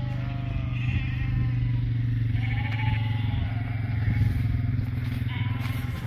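Quad bike engine running steadily under sheep bleating several times as the flock is driven along.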